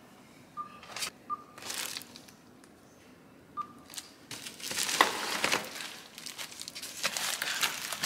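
Foil insulated delivery bags and paper bags being handled and opened, crinkling and rustling in short bursts that grow denser in the second half.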